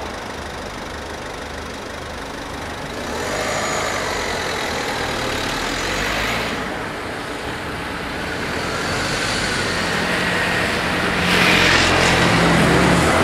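Road traffic: car and motor-scooter engines idling, then pulling away and driving over the crossing as the barriers lift. The sound grows louder as the vehicles start moving and is loudest from about eleven seconds in, as a car passes close by.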